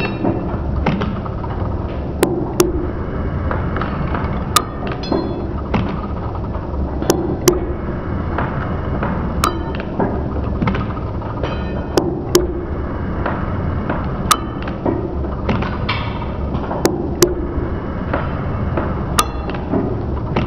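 Metal shaper running and taking cuts on a 431 stainless steel bar: a steady machine hum with a pair of sharp metallic clicks about every two and a half seconds, once per stroke of the ram.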